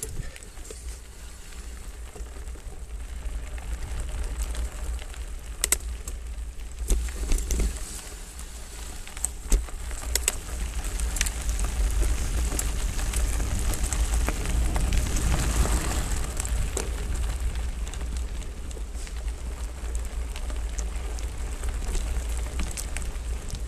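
Hardtail mountain bike riding over a rocky dirt singletrack: tyres crackling and crunching on the gravel, with sharp clicks and knocks as the bike jolts over rocks, over a steady low wind rumble on the microphone.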